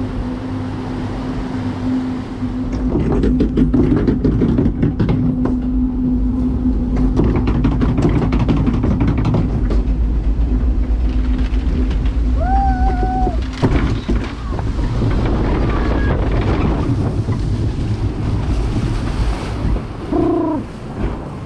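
Log flume boat climbing the chain lift: a steady motor hum with clattering from the lift under the boat. The hum stops about two thirds of the way through and gives way to rushing water and wind as the boat runs on through the flume. A short high shout comes just before the change, and another near the end.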